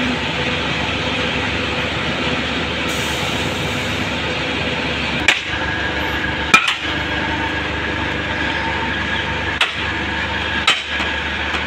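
A long iron bar striking the steel frame of a tipped sugar cane trailer: four sharp metallic clanks in two pairs, over a steady drone of machinery.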